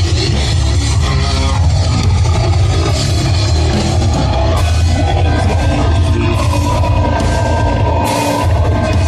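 Loud heavy metal music: a band with drum kit and heavy bass, with cymbal crashes several times in the second half.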